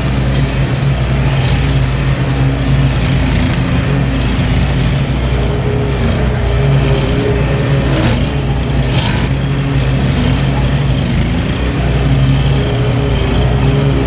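A small gasoline engine on outdoor power equipment running steadily, with a constant low hum that changes little, and a few brief scraping or rattling sounds about eight and nine seconds in.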